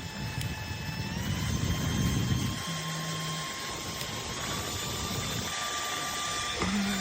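Handheld portable turbo fan running with a steady high whine over the rush of air. Its pitch steps up about a second in and again about four seconds in as the fan is switched to higher speeds.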